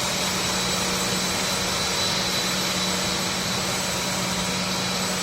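Steady machine noise of a PVC cable insulation extrusion line running in a factory: an even rushing hiss with a constant low hum and a thin, steady high whine.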